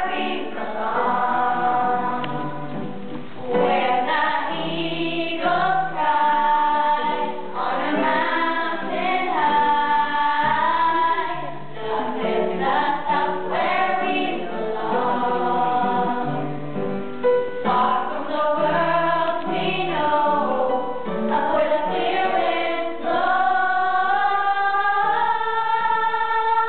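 A boy singing a song into a handheld microphone over musical accompaniment, holding long notes, the longest near the end.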